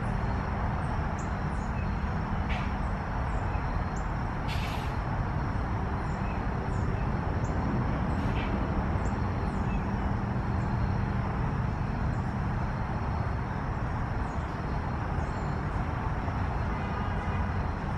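Steady low outdoor background rumble with a faint steady hum. Faint short, high chirps of small birds come now and then, and there is a brief hiss about four and a half seconds in.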